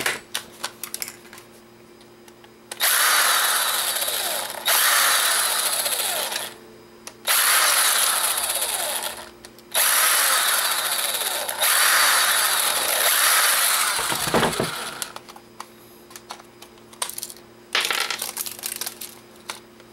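Cordless electric screwdriver running in about six short spells of one to two seconds each, backing small screws out of a digital camera's plastic casing. It is followed by light clicks as the loosened parts are handled.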